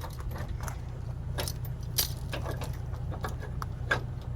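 A pickup truck idling steadily under a few sharp metallic clicks and clinks from trailer hitch hardware being handled, the loudest about two seconds in and near the end.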